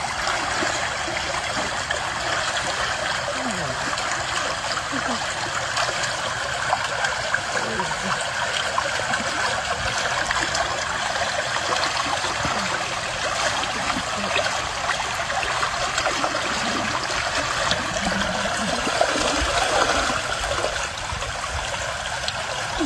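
Shallow stream of water flowing steadily.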